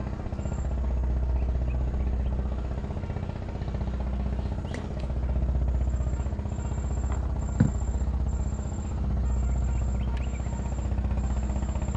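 A low, steady engine drone that swells and fades slowly, with a single sharp knock about seven and a half seconds in.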